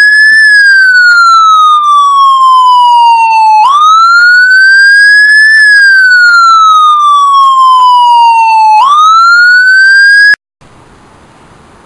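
Emergency-vehicle siren in wail mode: a loud single tone sweeping slowly up and down, about five seconds per rise and fall. It cuts off suddenly near the end.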